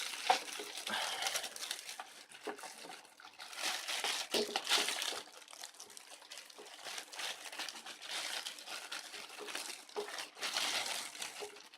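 Plastic packaging crinkling and rustling as it is pulled off and handled, in irregular crackly bursts.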